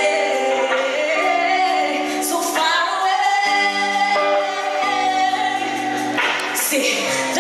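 A woman singing live into a microphone, holding long notes over sustained backing chords.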